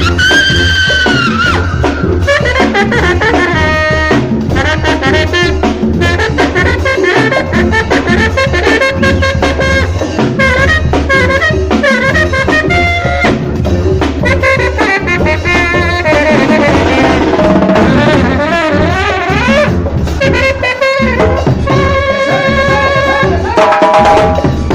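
Mexican banda brass band playing, trombones to the fore over trumpets or clarinets and a steady low bass line.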